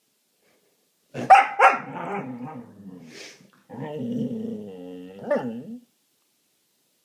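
A dog barks twice sharply about a second in, then grumbles. It follows with a long, wavering, pitched whine, with one more sharp yelp in the middle of it.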